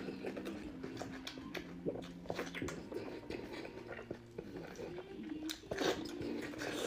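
Close-up wet eating sounds: a man biting, chewing and sucking soft, sauce-coated braised meat held to his mouth, with many quick lip smacks and slurps.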